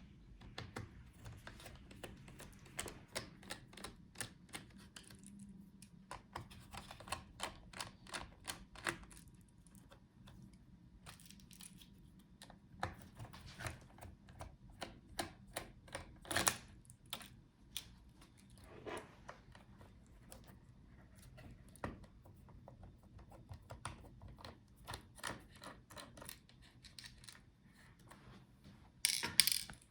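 Scattered small clicks and taps of hand tools and small parts while a laptop's motherboard is being unscrewed and lifted out, with a louder burst of clatter near the end.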